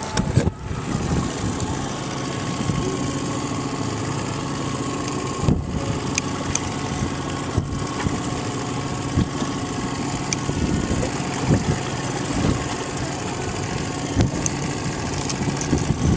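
Small outboard motor on the boat's stern running steadily at low revs, with a few short knocks partway through.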